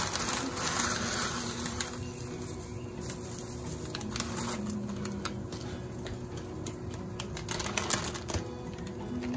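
Dry pancit canton noodles dropped into simmering broth in a wok: a short rush of hissing and crackle as they land. Then light clicking and rustling as the brittle noodle bundles are pushed around by hand, with another brief rush of hiss about eight seconds in.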